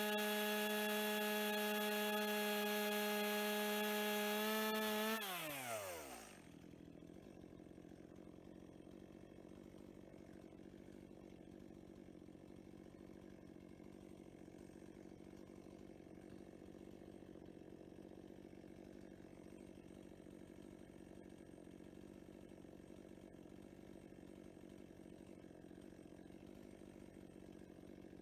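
Chainsaw running at a steady high speed, then winding down and stopping about five seconds in, its pitch falling as it dies away. A faint steady hum remains afterwards.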